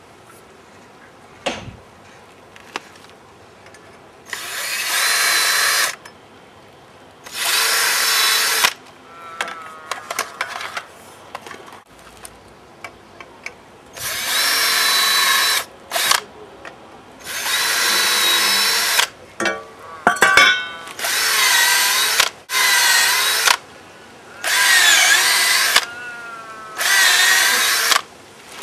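Cordless drill boring small holes into the end grain of a jarrah log, run in about eight short bursts of a second or two each, with a few knocks between.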